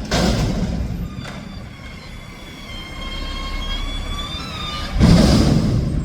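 Mack McNeilus front-loader garbage truck running with a steady low diesel rumble. A faint high whine comes in and out through the middle, and there is a loud rushing burst about five seconds in.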